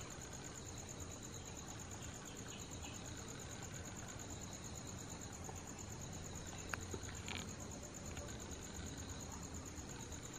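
Crickets trilling steadily, a fast, even, high-pitched pulsing over a low background rumble, with a faint click about two-thirds of the way in.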